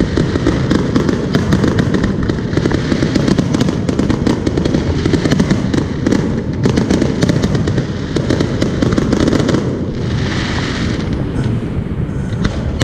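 Aerial fireworks display: many shells bursting and crackling in a rapid, dense stream over a steady low rumble. It thins out about ten seconds in as the show ends.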